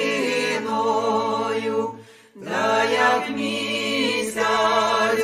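Voices singing unaccompanied as background music, in long held notes, with a short break about two seconds in.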